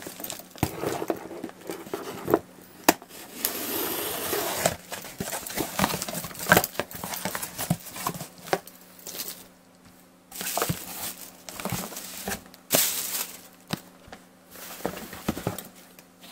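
Unpacking a cardboard shipping box by hand: cardboard flaps scraping and knocking, deflated plastic air-pillow packing bags crinkling, and a boxed tablet being lifted out, in a run of clicks and short rustling spells.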